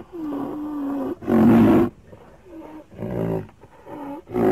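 Rhinoceros calling: three loud calls about a second and a half apart, each preceded by a quieter, drawn-out lower call.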